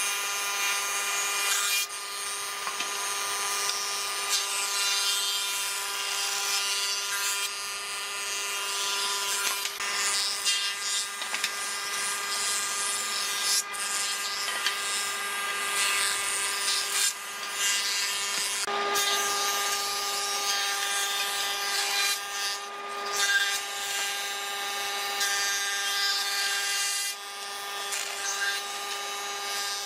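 Thickness planer of a combination woodworking machine running with a steady motor whine, its cutterhead planing boards as they feed through, with a hiss of cutting that comes and goes.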